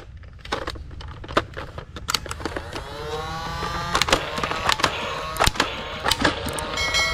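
Sharp irregular plastic clicks and knocks from toy blasters being handled, over a steady low hum, with a pitched tone that rises about two and a half seconds in and then holds.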